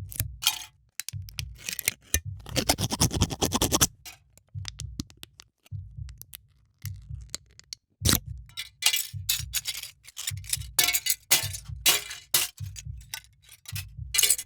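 A thin aluminium energy drink can being scraped, clinked and crunched: a rapid string of sharp metallic clicks and scrapes, with a longer dense scraping crunch about two to four seconds in. Background music with a steady low beat runs underneath.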